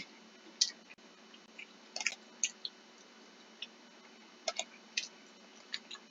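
Short, soft clicks at irregular intervals, about a dozen in all, over a faint steady hum.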